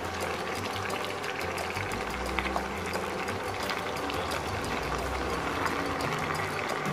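Raw chicken pieces sizzling in hot oil in a frying pan, a steady sizzle dotted with fine crackles and spits.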